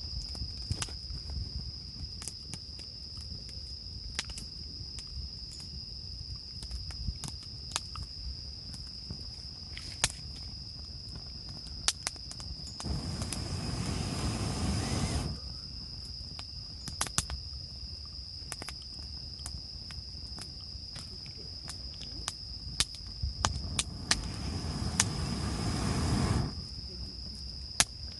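Insects chirring in one steady, high, unbroken tone, with scattered sharp clicks and two rushes of noise lasting a few seconds each, one about halfway through and one near the end, each cutting off suddenly.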